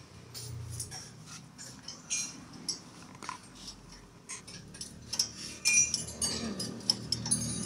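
Hand tools and metal parts clinking and tapping: scattered light metallic clicks over a low steady hum, getting busier and louder in the last couple of seconds.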